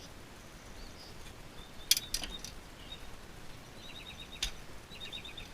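Sharp clicks and knocks of plastic and metal as a hard drive is handled and pulled from a Dish VIP 622 DVR, the loudest about two seconds in and another near four and a half seconds. Short rapid trains of high chirps sound between them.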